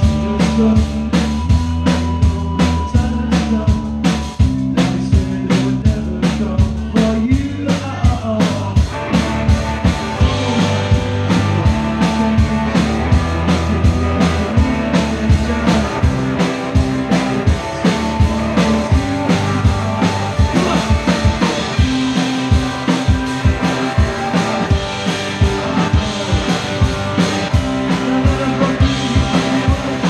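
Live rock band playing: electric guitar, bass guitar and drum kit, loud, with a steady driving drum beat.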